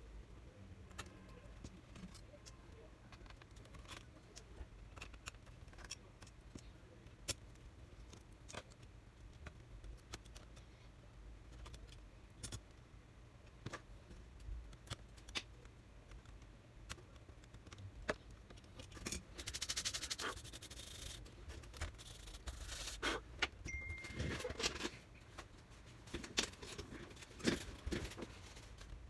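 Small scattered clicks and taps of hand tools and plastic and metal laptop parts being handled during disassembly, with a brief hissing scrape about two-thirds of the way in.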